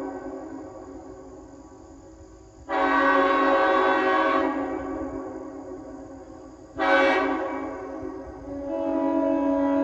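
Nathan M5 five-chime railroad air horn sounding a chord in blasts: a blast trailing off at the start, a sharp full blast about three seconds in that holds for about two seconds, a short toot about seven seconds in, then the horn swelling up gradually near the end. Each blast dies away slowly after it cuts off.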